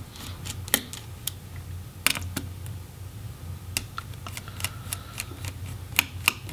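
Small Phillips screwdriver loosening laptop heatsink screws on a motherboard: about ten light, sharp clicks of the bit and screws, irregularly spaced.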